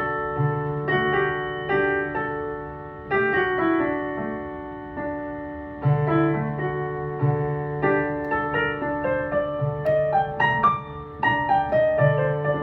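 Pianoteq virtual piano played from a keyboard: chords and melody notes change every second or so over low bass notes that ring on, held with the sostenuto (middle) pedal.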